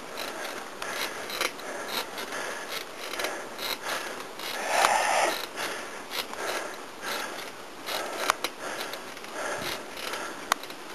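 Bicycle being ridden along a road: a steady run of mechanical clicking and rattling from the bike and its handlebar-mounted gear over tyre noise, with irregular sharp clicks and knocks throughout.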